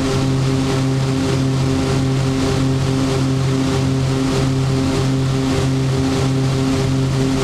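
Cockpit noise of a Beechcraft King Air B100's twin Garrett TPE331 turboprops on final approach: a steady propeller drone with a strong low hum and higher tones that pulse several times a second, over a constant hiss of engine and airflow.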